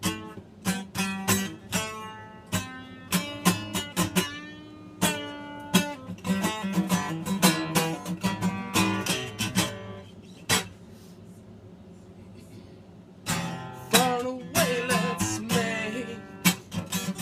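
Acoustic guitar strummed in a rhythmic pattern of ringing chords. The strumming drops away for about three seconds from about ten seconds in, then starts again.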